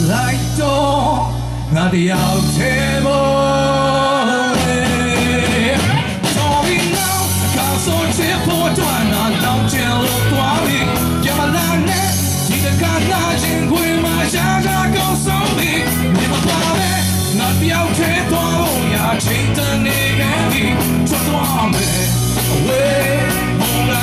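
Live rock band playing: a man singing into a microphone over electric guitar and a drum kit, with a steady beat.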